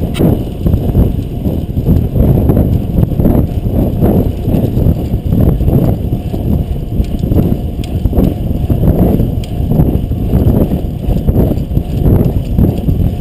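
Wind buffeting the action camera's microphone and road rumble from a fixed-gear bicycle ridden at race speed: a loud, uneven low rush that surges and dips throughout.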